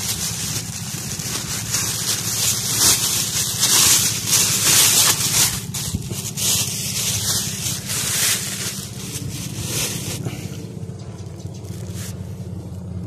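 Rustling and scraping of the phone being handled close to the microphone, loudest in the first half, over a steady low motor hum.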